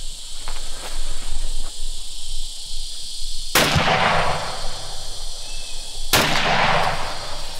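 Two rifle shots about two and a half seconds apart, each trailing off in a short echo.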